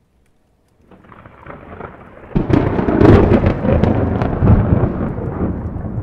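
A thunderclap. A low rumble builds from about a second in, then a sudden sharp crack with crackling strokes gives way to a long rolling rumble that slowly fades.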